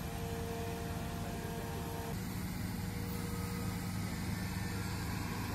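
Heavy diesel engine of an excavator running steadily, a low continuous drone. A steady whine with a few tones over it cuts off suddenly about two seconds in.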